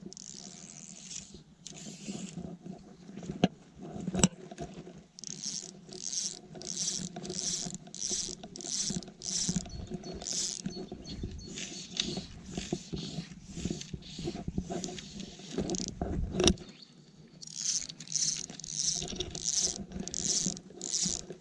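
Fly line being stripped in by hand through the rod guides, a short rasp about twice a second in two runs, with a few sharp knocks from handling the rod.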